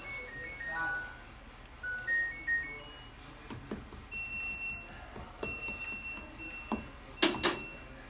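LG top-load washing machine's control panel playing its short power-on melody of electronic beeps, followed by single beeps as buttons are pressed. A few clicks, and two louder knocks near the end.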